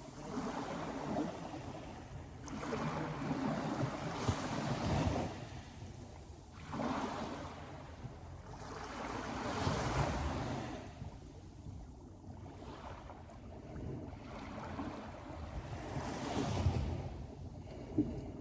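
Sea waves surging and receding, the wash swelling and fading every few seconds.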